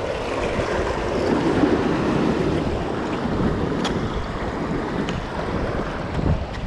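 Ocean swell surging and washing over a rock ledge, with wind buffeting the microphone; a couple of faint clicks about four and five seconds in.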